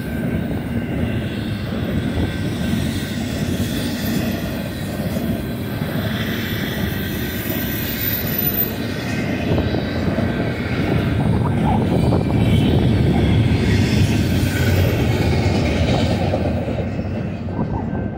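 BNSF double-stack intermodal freight cars rolling past on the mainline: a steady rumble of steel wheels on rail with a faint high whine. The higher sounds drop away near the end as the last car goes by.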